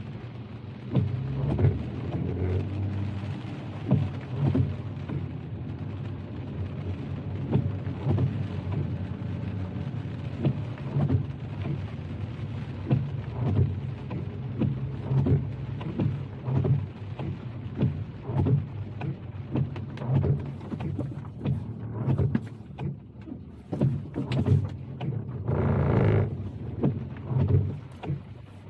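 Rain tapping irregularly on a car's windshield and roof over the steady low hum of the car driving on wet road, heard from inside the cabin. Near the end comes a louder rush lasting about a second.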